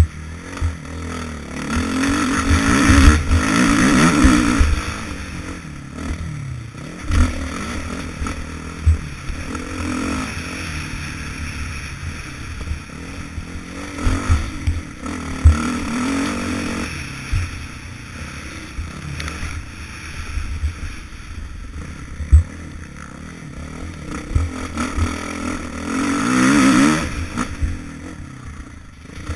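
Motocross bike engine pulling and revving hard down the straights, rising in pitch three times as it accelerates, heard from a helmet-mounted camera. Many short low thumps run through it.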